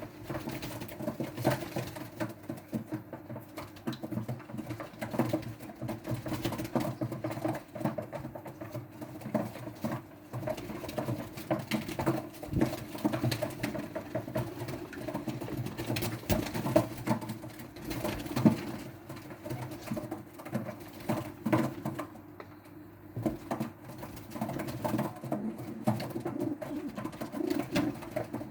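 Many pigeons cooing continuously, mixed with frequent short clicks, taps and flutters from birds crowding at feed.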